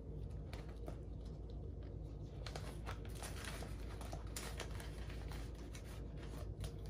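Soft rustling and light clicks of paper bills and a plastic cash-binder envelope being handled, over a faint low hum.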